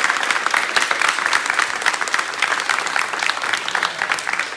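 A group of basketball players sitting on a gym floor applauding: many hands clapping together in a dense, steady patter.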